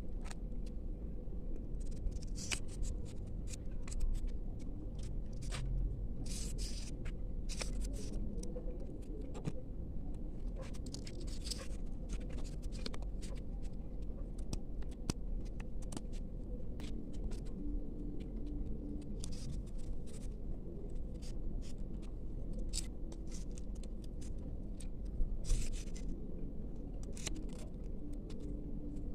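Small paper and plastic packaging handled close to the microphone: scattered short rustles, crinkles and light taps, over a steady low hum.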